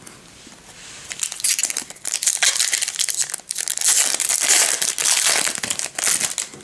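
Foil wrapper of a Topps Chrome trading-card pack being torn open and crinkled by hand. The crackling starts about a second in and carries on almost to the end.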